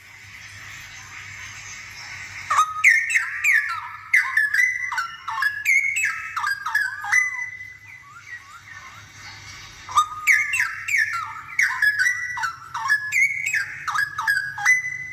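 Straw-headed bulbul (cucak rowo) in full song: two loud, bubbling phrases of rapid gliding whistles, the first starting about two and a half seconds in and the second about ten seconds in, each lasting roughly five seconds.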